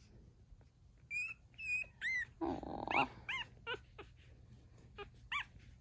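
Nine-day-old Cavalier King Charles Spaniel puppies squeaking and whimpering as they stir: a run of short, high-pitched squeals that rise and fall in pitch, starting about a second in, with one brief rougher noise in the middle.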